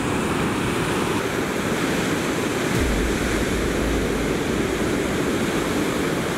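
Ocean surf breaking and washing up the beach, a steady loud rush of water, with a deeper low rumble for a couple of seconds near the middle.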